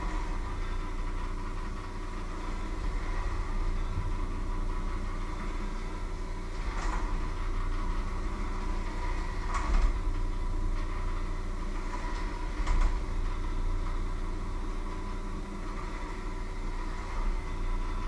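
Electric hand mixer motor running steadily in a metal bowl, with three sharp clinks of the beaters or utensils against the bowl.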